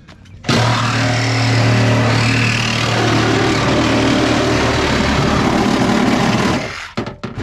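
Cordless reciprocating saw with a demolition-grade blade running hard as it cuts through the pickup truck's roof pillar. It starts about half a second in, runs steadily, and cuts off shortly before the end.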